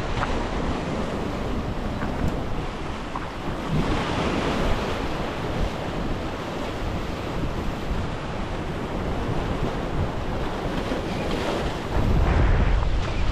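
Waves breaking and washing over the rocks of an inlet jetty, swelling louder a couple of times, with wind buffeting the microphone, heaviest near the end.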